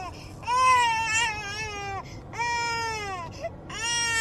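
German Shepherd whining and howling in long, crying calls. There are about three in a row, each sliding down in pitch as it fades.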